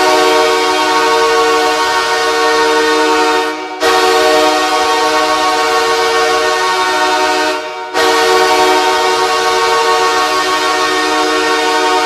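Los Angeles Kings' arena goal horn blowing three long blasts of about four seconds each, a chord of several steady tones, signalling a goal.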